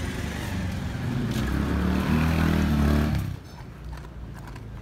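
Motor vehicle engine running nearby, growing louder for about three seconds, then stopping abruptly and leaving a quieter background.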